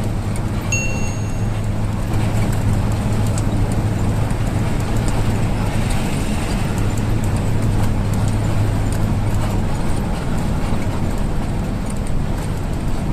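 Mercedes-Benz intercity bus engine running steadily, with a deep hum that drops away about ten seconds in, amid traffic noise. A short high beep sounds about a second in.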